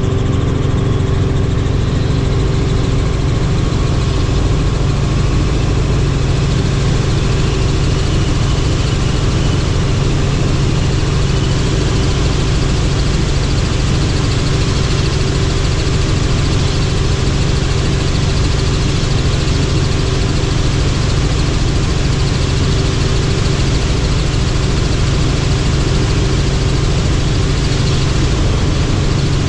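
Helicopter in flight, heard from on board: its engine and rotor make a loud, even drone with a steady low hum that does not change.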